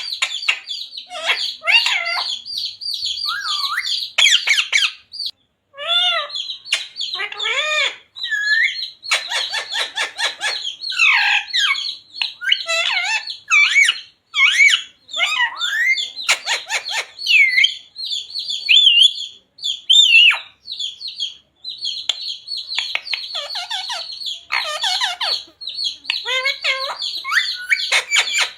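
Pet rose-ringed (ring-necked) parakeet chattering and squawking in quick bursts of high, bending calls, with some speech-like mimicked phrases, broken by short pauses.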